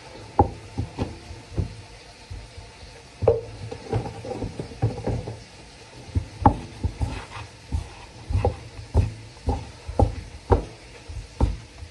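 Hand mixing food in a ceramic bowl on a wooden counter: irregular knocks and clatter, about one or two a second, as the bowl bumps against the wood.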